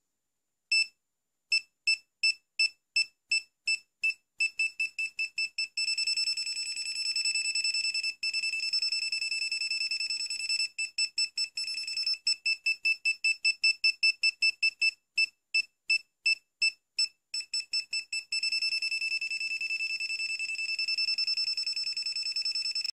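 Winapex 268B clamp multimeter's non-contact voltage (NCV) detector beeping as it senses mains voltage: a high electronic beep that starts at a few beeps a second, then speeds up into a near-continuous tone. It breaks back into separate beeps in the middle and goes near-continuous again near the end.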